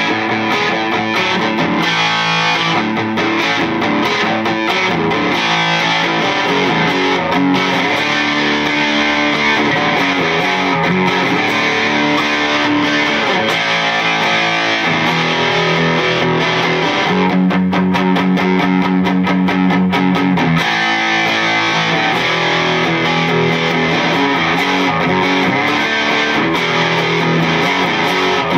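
Electric guitar lead licks from an Epiphone Les Paul Standard with Seymour Duncan '59 humbuckers, played through a Bugera 6260 tube amp head into a 2x12 cabinet loaded with Weber Blue Dog and Silver Bell speakers. Quick runs of notes, with one note held for about three seconds a little past the middle.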